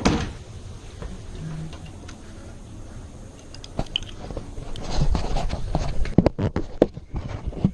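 Close handling noise: hands working small metal door hardware near the microphone, rubbing and clicking. A quick run of sharp clicks and knocks comes in the last couple of seconds.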